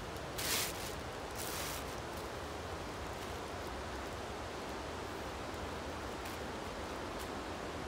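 Steady, even hiss of forest background noise, with two short rustles in the first two seconds.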